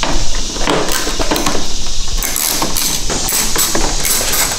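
Clicking and clatter of hand tools undoing the car's bumper bolts, with a quick run of evenly spaced clicks in the second half.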